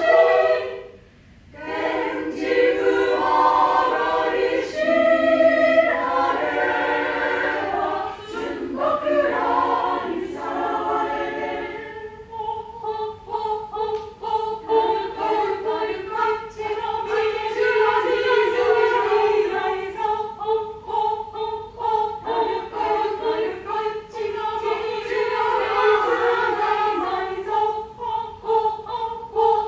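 Small mixed choir, mostly women's voices, singing together. The singing breaks off briefly about a second in, then resumes, moving into long held notes in the second half.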